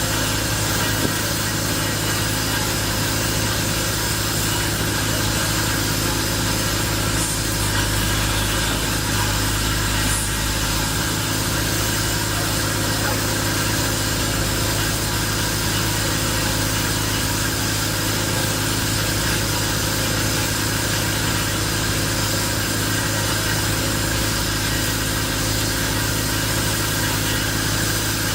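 An engine running steadily at an unchanging speed: a continuous, loud hum.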